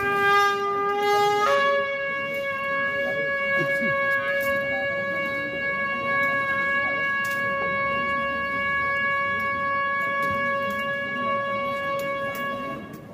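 A long horn call in a religious procession: a lower note for about a second and a half, then a step up to a higher note held steadily for about eleven seconds before it stops.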